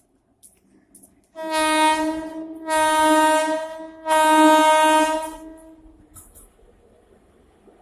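Horn of a WAP-4 electric locomotive, sounded as three loud blasts run close together over about four seconds, starting about a second and a half in, with a low note held underneath throughout. It fades into a faint rumble.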